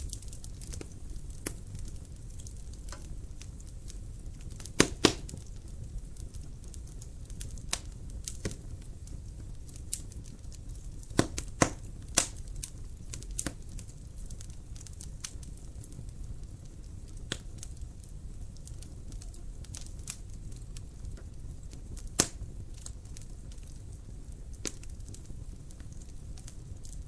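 Wood fire burning in a fireplace: a steady low rumble of flames with irregular sharp crackles and pops, the loudest pops about five seconds in, around eleven to twelve seconds in, and near twenty-two seconds.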